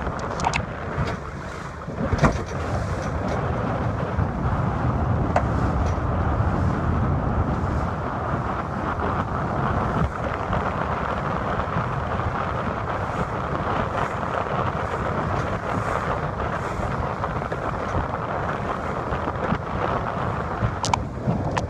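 Steady wind buffeting the microphone over the wash of water on a boat out in a fresh breeze, with a couple of brief sharp clicks, one about two seconds in and one near the end.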